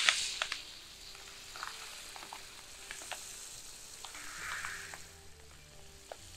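Coarse sand poured from a bag into the space around a well casing, hissing and trickling with scattered small ticks of grains. It is loudest at the start, then fainter.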